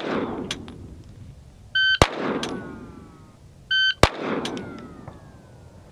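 An electronic shot timer beeps, and about a quarter second later a pistol fires a single shot, with an echoing tail. This happens twice, about two seconds in and again about four seconds in: a reaction drill of firing on the beep.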